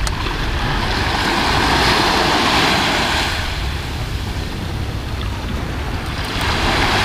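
Small sea waves washing onto a pebble-and-sand shore, swelling about a second in, easing off, then swelling again near the end. Wind rumbles on the microphone throughout.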